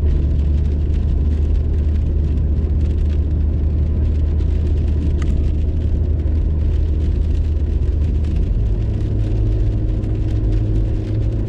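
A car driving, heard from inside the cabin as a steady low rumble of engine and road noise. The low hum shifts slightly higher about three quarters of the way through.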